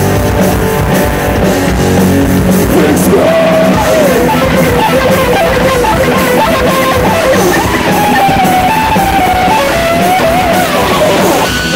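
Live heavy metal band playing at full volume: distorted electric guitars, bass and drums with regular cymbal hits, and a lead line over them that bends and wavers with vibrato.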